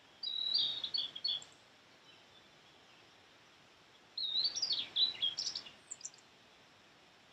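Blue-and-white flycatcher singing: two short phrases of high, clear notes, the second about four seconds after the first.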